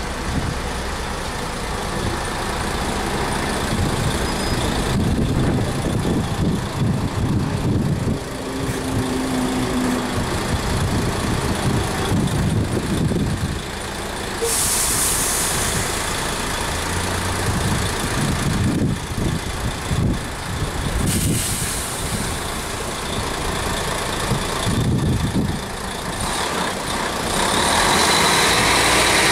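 Diesel city bus pulling away slowly from a stop, its engine running with an uneven low rumble. Air hisses sharply from its brake system about halfway through and again a few seconds later, and the sound grows louder and fuller near the end.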